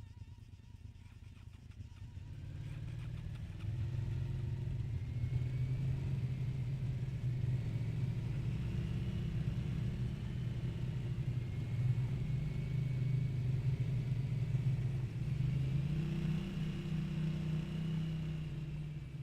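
Motor vehicles running and moving off: a low engine or motor rumble builds over the first few seconds and then holds, with a fainter whine above it that rises and falls.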